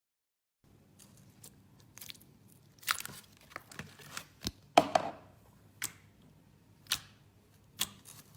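Crunchy slime being pressed and handled, giving sharp crackles and clicks at irregular intervals, the loudest about five seconds in. It starts after a moment of silence.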